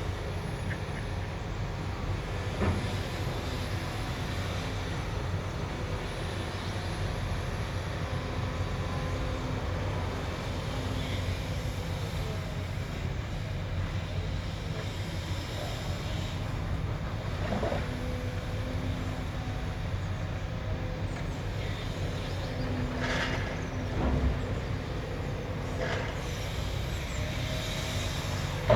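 Heavy earthmoving machines at work: a steady low engine rumble with scattered metallic clanks and knocks, a couple of them standing out about two-thirds of the way in.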